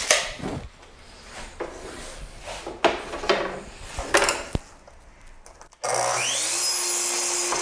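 Wooden strip knocked and slid against a miter saw's table for several seconds. About six seconds in, a sliding compound miter saw starts with a rising whine, its blade cutting across a finger-jointed pine strip, and runs steadily for a couple of seconds.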